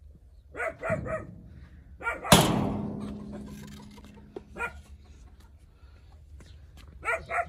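A dog barks in short bursts. About two seconds in, a rusty sheet-metal door gives one loud clang that rings and fades over a few seconds. The dog barks again near the end.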